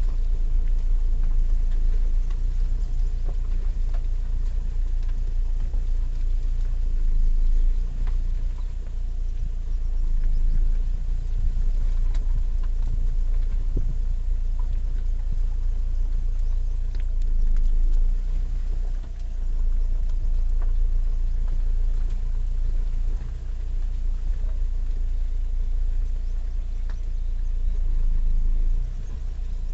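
Wind buffeting the microphone: a low rumble that swells and dips in gusts.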